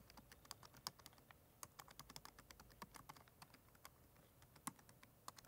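Faint typing on a computer keyboard: a quick, irregular run of key clicks that thins out after about four seconds, with a few more keystrokes near the end.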